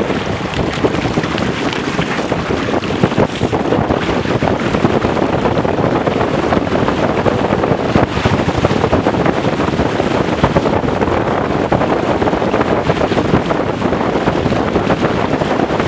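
Wind buffeting the boat-mounted camera's microphone, loud and steady, over the rush and splash of water along the hulls of a Weta trimaran sailing at speed.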